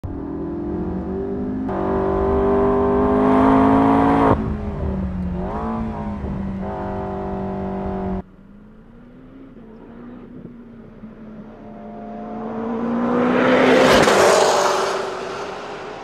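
McLaren 12C's twin-turbo V8 accelerating hard, the revs climbing and dropping at each upshift. After an abrupt cut the sound is quieter, then a 12C approaches, passes close with a rush of noise near the end, and fades away.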